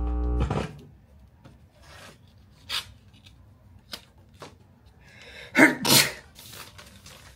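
Vinyl records handled in a console stereo's record compartment: soft rubbing and clicks, then two loud swishes of a cardboard album jacket sliding out of the rack about five and a half to six seconds in. A brief low buzz sounds at the very start.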